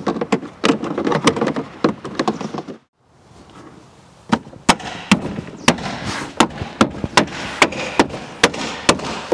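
Sharp plastic clicks and knocks as a tailgate trim cover is pressed into place and its clips snap home. After a brief break, a steady run of sharp knocks at an even pace of about two or three a second.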